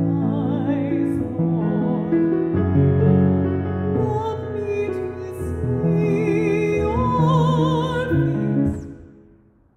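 A woman singing a slow song with vibrato, accompanying herself on a grand piano. The phrase ends and the sound fades away near the end.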